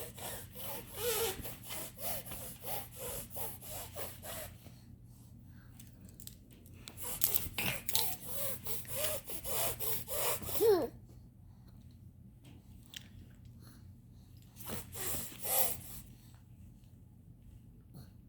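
A baby's rapid, raspy breathing with short voiced sounds, in three bouts: about four seconds at the start, about four seconds from seven seconds in, and a short one near the end.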